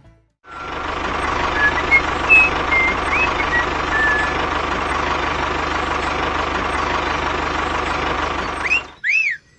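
A small motor running steadily with a constant whine, starting after a moment of silence and stopping suddenly near the end. A few short chirps sound over it.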